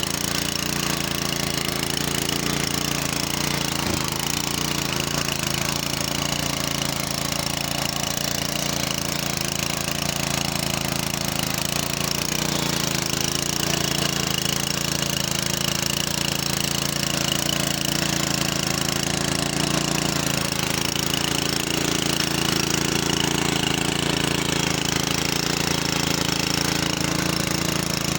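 Small engine of a godi machine, a power weeder used for hoeing between crop rows, running steadily under a constant load.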